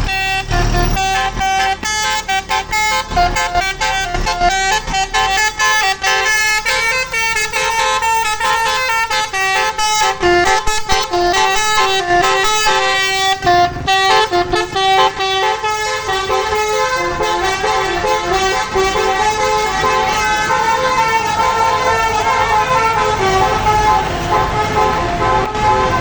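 Bus telolet horn of the Basuri type, a set of multi-tone air horns, playing a fast melody of short stepping notes; in the last third the notes are held longer.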